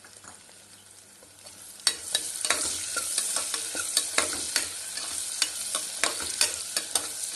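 Faint sizzle of whole spices in hot oil, then about two seconds in chopped onion goes into the pressure cooker and the oil sizzles loudly. A spoon clicks and scrapes against the pot as the onion is stirred.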